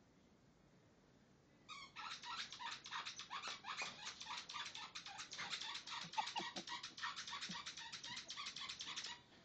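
Rubber squeaky pet toy squeaked over and over in a rapid, unbroken run of sharp high squeaks, several a second, as a pet chomps on it; it starts about two seconds in and stops abruptly near the end.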